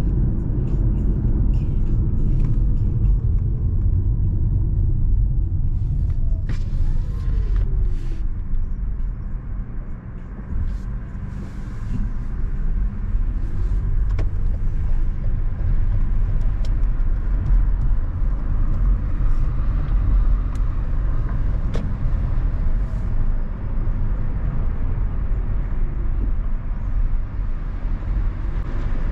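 Steady low road rumble of a car driving on the highway, with tyre and engine noise. The rumble dips briefly about ten seconds in.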